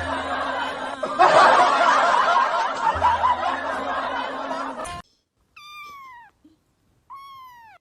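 A crowd laughing, as in a canned laugh track, over music, cutting off abruptly about five seconds in. Then a cat meows twice, each call falling in pitch.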